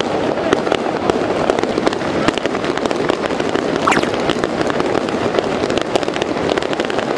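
Aerial fireworks display bursting overhead: a dense, continuous run of sharp crackling pops, with a brief whistle about four seconds in.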